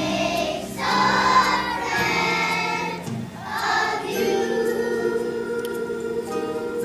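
Young children's choir singing with musical accompaniment, swelling louder twice.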